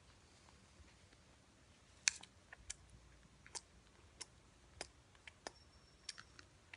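About a dozen faint, sharp wet clicks and smacks, spaced irregularly from about two seconds in, the first the loudest: a parrot's beak and tongue kissing at a man's mouth. A brief thin high tone sounds near the end.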